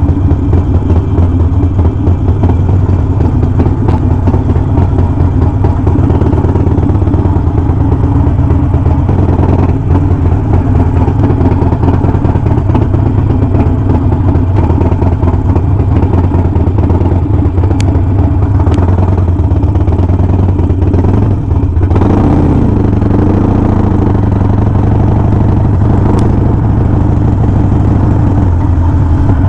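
Harley-Davidson Sportster Forty-Eight's air-cooled V-twin running under way, a steady low engine drone; about two-thirds through the engine note rises and falls as the throttle changes.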